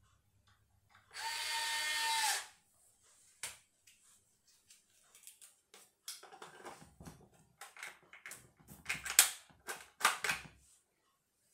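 A cordless electric screwdriver runs steadily for about a second near the start. Later comes a series of irregular plastic clicks and knocks as a battery adapter plug is worked into an electric balance bike's battery compartment, with two sharper clicks near the end.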